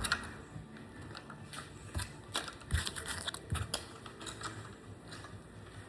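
Light, irregular clicks and taps of a diecast model car and its plastic packaging and stand being handled and set down, with a cluster of sharper clicks about two to four seconds in.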